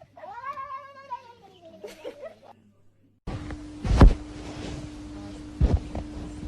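A cat meowing: one long, drawn-out meow that rises and then falls in pitch. After a brief silence comes a steady hum with two loud thumps, the louder one about four seconds in.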